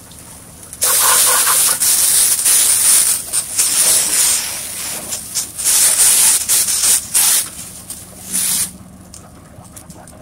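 A water jet from a hose spraying against the steel body and chute of a cement mixer truck during washing: a loud hiss and splatter that starts about a second in, surges on and off, and stops shortly before the end.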